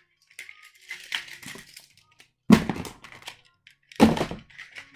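Magnetic building set's square pieces being handled, with light clicks and two louder thunks, one about halfway through and one near the end.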